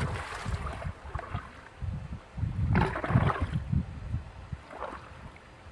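Water swirling and gurgling down into a whirlpool drain, with irregular low rumbling and a louder noisy swell about three seconds in.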